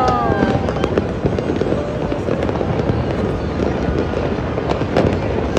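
Aerial fireworks going off in quick succession: a dense, continuous run of overlapping bangs and crackles.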